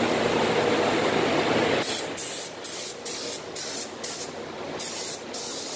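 Gravity-feed paint spray gun spraying base coat in a quick series of short hissing bursts, two or three a second, as the trigger is pulled for short passes. A steady machine hum stops suddenly about two seconds in, just as the bursts begin.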